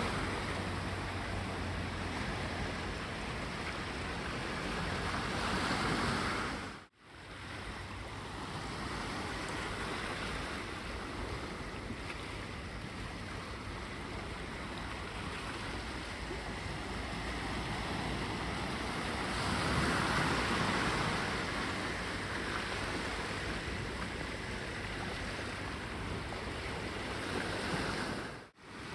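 Sea waves breaking and washing up on a beach: a steady rushing surf that swells now and then. The sound cuts out briefly twice, about seven seconds in and near the end.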